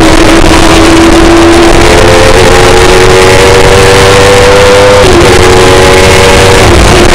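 Kawasaki ZX-10R inline-four motorcycle engine in a race car pulling hard under full throttle. The note holds steady for the first couple of seconds, then climbs, drops sharply at an upshift from fourth to fifth about five seconds in, and climbs again before another brief dip near the end.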